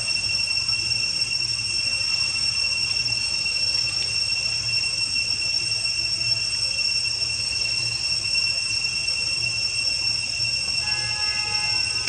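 Cicadas droning: a steady, high-pitched buzzing tone that holds unchanged throughout.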